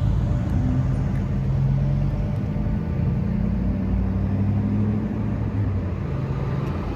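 A motor vehicle engine running: a low, steady rumble whose pitch drifts slowly.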